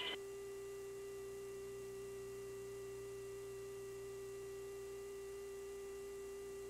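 Steady electrical hum on a helicopter's intercom audio: one low unchanging tone with faint higher tones above it, between radio calls.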